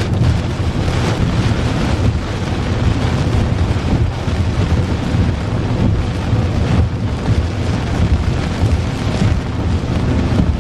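Strong, gusty thunderstorm squall-line wind rushing and buffeting, with a heavy low rumble of wind hitting the microphone.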